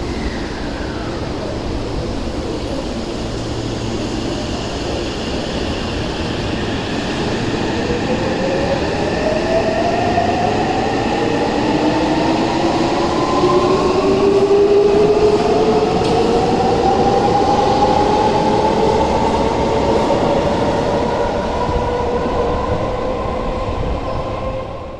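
Seibu 6000 series electric train pulling out of an underground station: several traction-motor whine tones climb in pitch from about seven seconds in and then level off as it gathers speed, over a steady rumble of wheels and cars.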